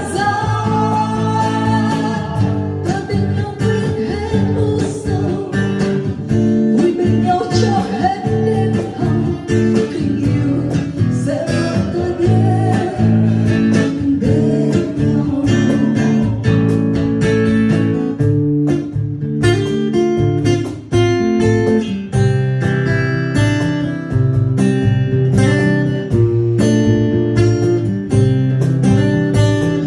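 Acoustic guitar strummed with a cajón keeping the beat, and a woman singing over it through the first half. In the second half the guitar and cajón play on their own.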